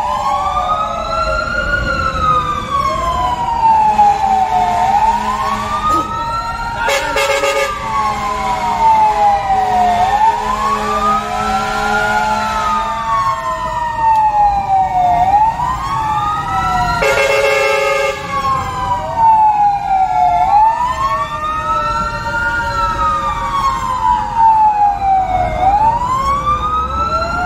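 Two fire-truck sirens wailing out of step, each rising and falling about every five seconds, heard from inside a fire engine's cab over a low engine rumble. A horn blasts briefly about a quarter of the way in and again for about a second about two-thirds through.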